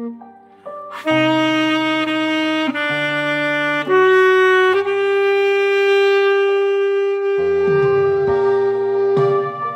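Instrumental music: a slow melody on a reedy lead instrument over bass and keyboard backing. The lead holds one long note through the second half.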